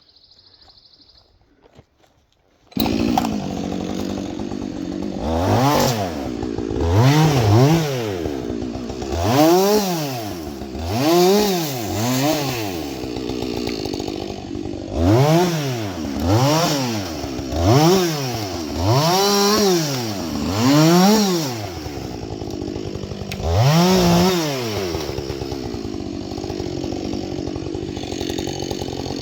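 Husqvarna 562 XP two-stroke chainsaw cuts in suddenly about three seconds in, running, then revs up and down about a dozen times, roughly every one and a half to two seconds. It settles into a steady run for the last few seconds.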